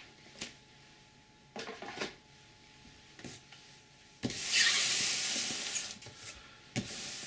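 Large cardboard shipping box pushed across a wooden tabletop: a loud scraping hiss lasting about a second and a half, after a few light knocks of handling and followed by one sharp knock as it is set in place.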